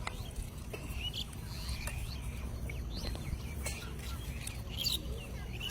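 Birds chirping: short, quick chirps scattered every half second or so, over a low steady rumble.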